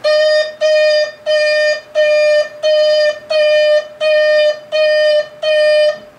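Electronic reversing beeper of a Bruder Mack Granite toy dump truck: nine steady beeps of one pitch, about one and a half a second.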